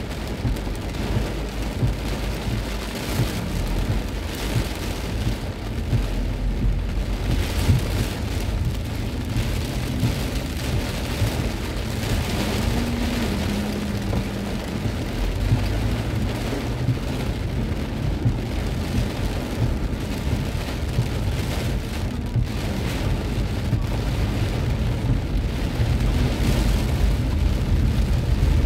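Heavy rain drumming on a car's roof and windshield, heard from inside the cabin, over a steady low rumble.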